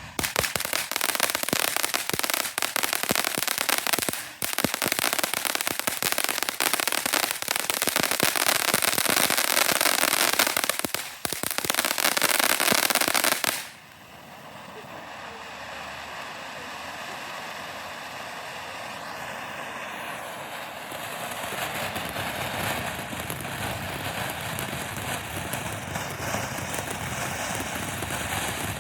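Phantom Fireworks Ultimate Tank ground firework going off: loud, dense rapid crackling for about the first half, with two short breaks, which cuts off suddenly; then a quieter steady hissing spray of sparks that slowly grows louder.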